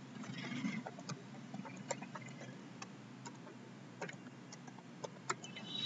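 Computer keyboard keys clicking in an irregular run of single keystrokes as a password is typed.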